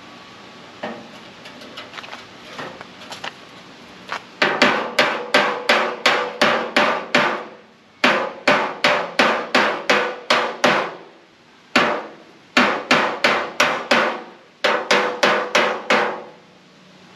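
Body hammer striking a dented sheet-metal Camaro fender against a dolly to work out a crease. A few light taps come first, then from about four seconds in fast runs of loud, ringing metallic blows, about three a second. There are four such runs and one lone blow, with short pauses between them.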